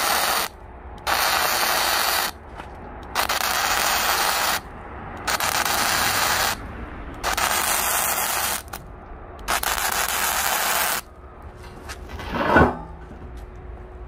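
Wire-feed welder arc crackling and hissing in short bursts of a second or so, laying stitch welds on steel plate, with pauses between each bead. A single sharp knock near the end.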